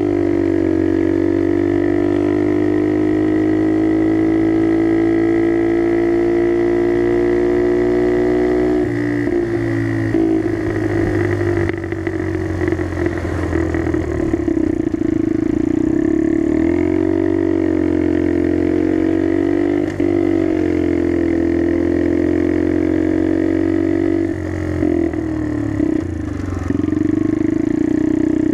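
Skyteam Dax mini motorcycle's engine running through an aftermarket carbon exhaust while riding. The engine note climbs steadily for about nine seconds, falls off, then rises and falls several times as the throttle changes.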